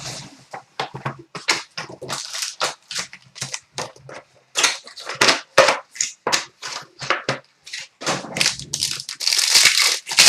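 Packaging of a hockey card box being torn open and crinkled: a rapid, irregular run of crackles and rips, with a longer tear near the end.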